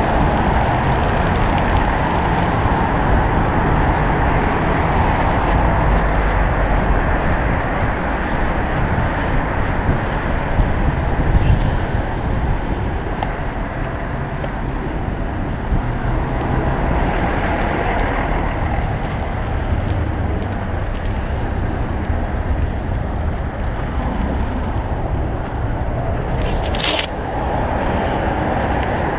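Wind buffeting the camera microphone of a cyclist riding a bicycle along a city street, with the rumble of passing cars and trucks. A short hiss comes near the end.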